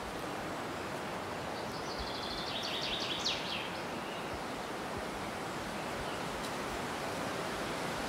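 Steady outdoor background hiss. About two seconds in, a brief series of rapid high ticks, like a short trill, sounds for under two seconds.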